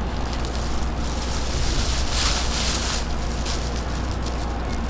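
Outdoor wind on the microphone: a steady low rumble with hiss, and a louder rush of hiss about two seconds in that lasts about a second.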